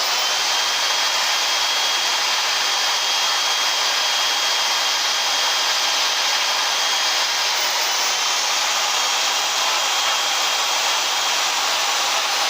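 Power carving tool running steadily on wood: a continuous hissing rush with a thin steady whine over it.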